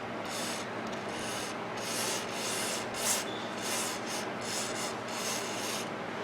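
CRC contact-cleaner aerosol sprayed in a quick series of short hissing bursts onto a microwave's ribbon-cable socket, to clear dust from the connection.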